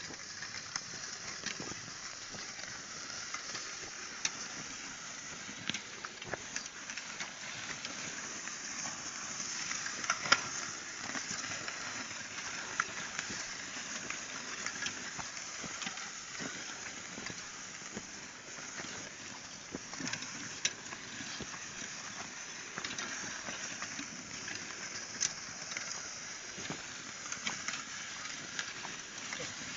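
Open-field ambience: a steady high hiss with scattered crackles and clicks, one sharper click about ten seconds in.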